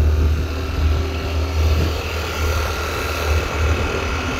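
Yamaha Fascino scooter running under way on a climb, with wind rumbling on the microphone.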